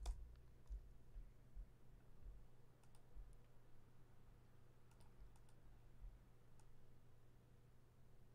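Near silence: room tone with a steady low hum and a few faint, scattered clicks of a computer keyboard or mouse.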